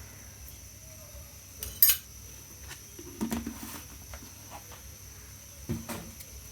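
A metal spoon clinking and knocking against kitchenware: a sharp clink about two seconds in, a few knocks around the three-second mark, and another near the end.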